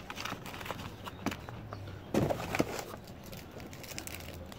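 Small items and packaging being handled in a cardboard box: scattered clicks and rustles, with a louder cluster of knocks about two seconds in.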